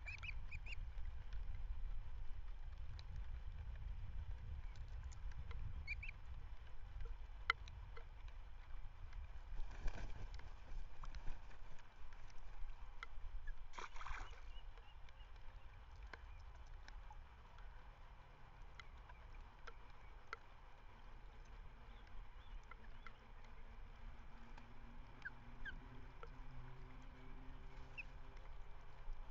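Outdoor ambience at a bird's nest: a steady low rumble with scattered short, faint bird chirps and two brief rushes of noise, about ten and fourteen seconds in. A faint low drone comes in near the end.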